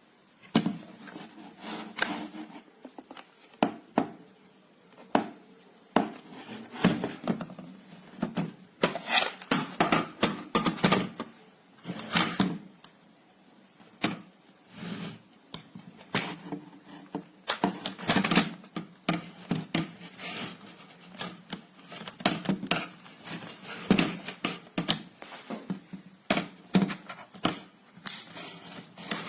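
Irregular clicks, taps and light knocks of hard objects being handled, in quick uneven runs with short pauses.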